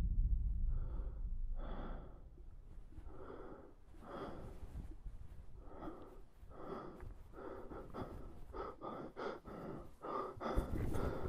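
A person breathing heavily in short gasping breaths that come faster and louder toward the end, over a low rumble that fades away during the first two seconds.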